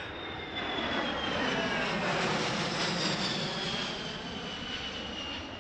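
Boeing C-17 Globemaster III's four turbofan engines on a flyby: a jet rush that swells to its loudest about two to three seconds in, then eases, with a high whine falling steadily in pitch as the aircraft passes.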